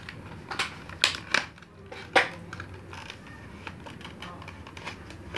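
Cardboard box and clear plastic packaging tray being opened and handled: a string of sharp plastic clicks and crackles, the loudest about two seconds in, then lighter scattered clicks.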